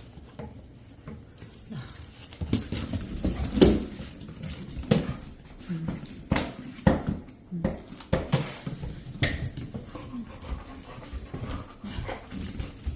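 Electronic mouse squeaking from a motorized furry cat-toy ball, a high wavering chirp that starts about a second in and runs on with one short break. Scattered knocks as the ball bumps and rolls about.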